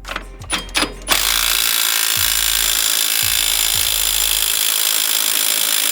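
A few clicks and knocks of tools, then a power tool running steadily with an even, hissing sound for about five seconds before cutting off.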